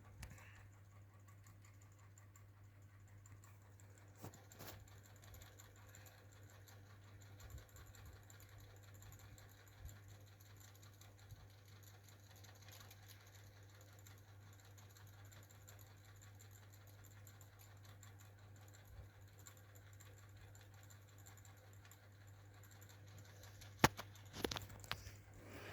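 Mini ceiling fan running: a faint steady low hum with light scattered ticks, and one sharp click near the end.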